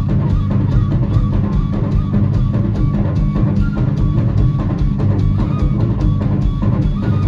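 A live band plays loud through a PA system: a drum kit drives a dense beat with heavy bass drum under guitar, and short high melodic phrases come from a side-blown flute.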